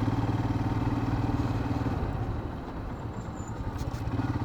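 Royal Enfield Himalayan's single-cylinder engine running steadily under way, with a fast even pulse. It gets quieter for a second or two past halfway, then comes back up near the end.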